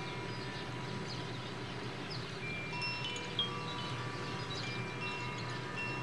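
Several Koshi chimes ringing as the wind moves them: clear tones struck at irregular moments and left to ring, overlapping one another, over a steady low rumble of wind. A slightly sharper strike comes a little past the middle.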